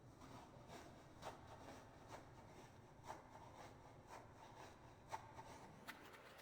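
Faint soft rubbing of a foam banana squishy being handled, with a few light crackly ticks about a second apart.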